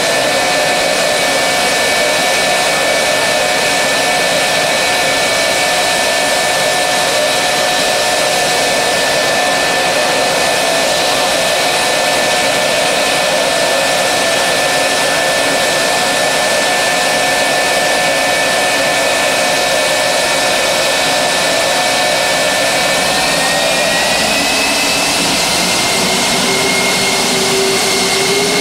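Lockheed TF-104G Starfighter's J79 turbojet running on the ground, a steady rush with a high whine over it. Near the end the whine rises in pitch as the engine speeds up.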